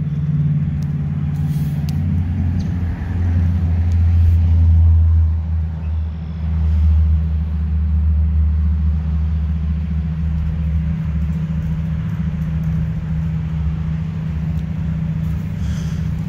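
Steady low rumble of an idling engine, a little louder about four to five seconds in.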